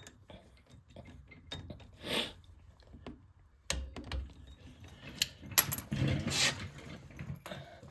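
Torque wrench being ratcheted and handled on the hub's axle nut: irregular ratchet clicks and metal tool clinks, busiest around six seconds in.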